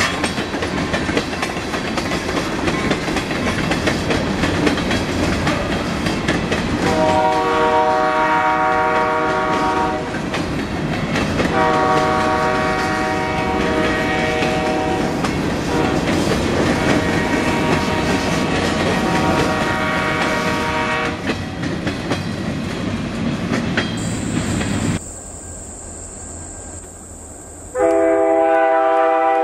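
Freight cars rolling past on jointed track with a clicking, rumbling wheel noise, while the diesel locomotives' multi-tone air horn sounds ahead of them in two long blasts. Near the end, after a quieter moment, the horn blows again, loud and close.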